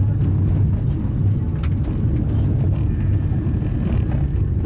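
Car driving on a gravel road: a steady low rumble of tyres and road noise, with scattered clicks of gravel striking the car.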